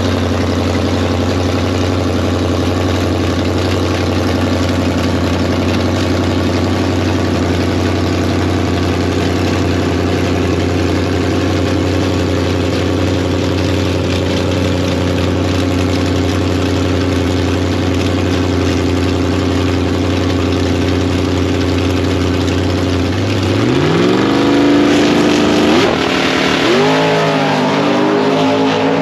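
Drag-race car engine holding a steady speed, then about 23 seconds in it revs sharply upward as the car launches. The pitch climbs, drops back and climbs again twice near the end, at the gear changes.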